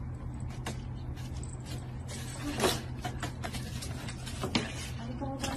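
A few soft taps over a steady low hum, which fit a cat's paws landing on a wooden floor as it hops and pounces.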